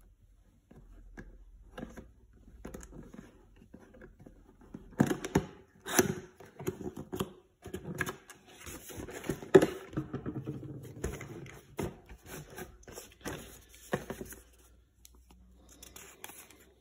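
Cardboard box being opened by hand: a few faint ticks, then from about five seconds in the lid and flaps scrape and knock, followed by paper rustling as the folded instructions leaflet is pulled out.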